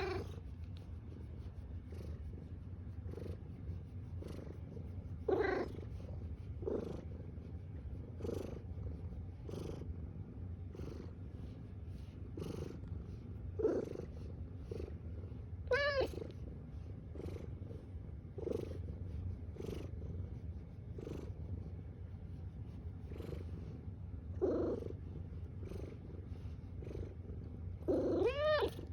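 Domestic cat purring steadily, the purr swelling about every second and a half with its breathing. A few short rising-and-falling calls come in the middle and near the end.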